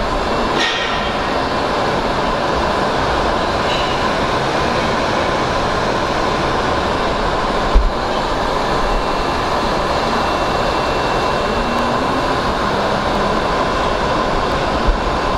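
Steady, loud workshop noise: an even rushing hum with a faint high whine running through it, and one sharp knock about eight seconds in.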